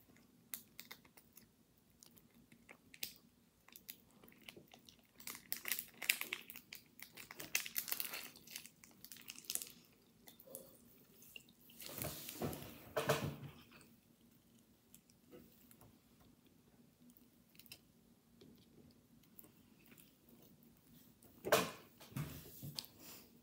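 Paper tissue being torn and crumpled by hand close to the microphone: scattered small clicks and several bursts of crinkling and crackling, loudest about halfway through and again briefly near the end.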